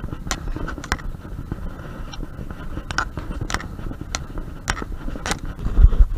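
Footsteps crunching and scraping on grit and broken plaster on concrete stairs, irregular steps roughly every half second, over a low rumble of wind and handling on a body-worn microphone. Near the end there is a loud low thump on the microphone.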